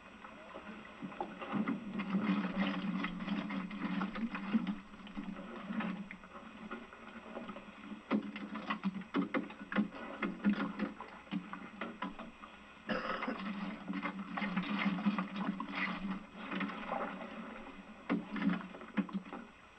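Boat engine running steadily while oyster tongs are worked over the side, with frequent clacks and clatter of the tongs and oysters.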